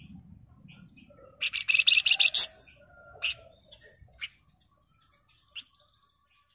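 Flamboyan (Javan fulvetta) singing: a fast, dense, chattering trill of high notes about a second and a half in, lasting about a second, followed by a few single sharp chirps spaced a second or so apart.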